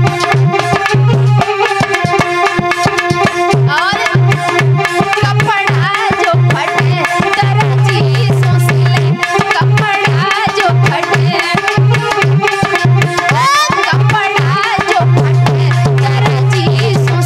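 Lively Indian folk dance music: a hand drum beating a fast, steady rhythm under a held drone, with a melody that slides up and down in pitch now and then.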